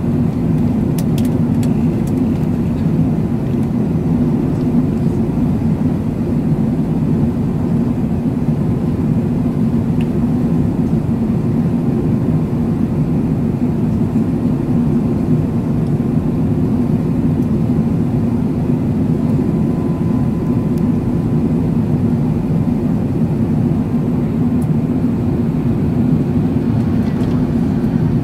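Steady cabin roar inside an Airbus A380 on descent, heard from a window seat over the wing: the rush of air and the drone of its four Rolls-Royce Trent 900 engines, deep and unbroken.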